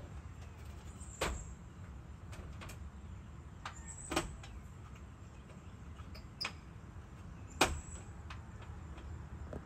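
Outdoor evening ambience: a steady low rumble with a few scattered sharp knocks, the loudest about a second in, about four seconds in and near eight seconds in.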